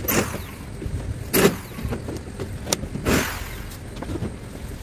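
A long wooden board scraping against the edge of a corrugated zinc roof as it is pushed and shifted up onto the roof: three scrapes about a second and a half apart, with small knocks between.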